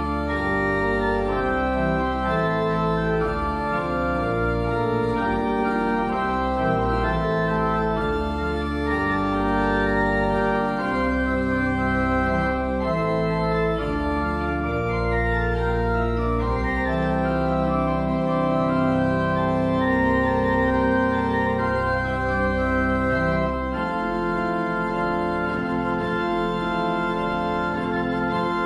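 Organ music: slow sustained chords over deep held bass notes, the deepest bass dropping away in the last few seconds.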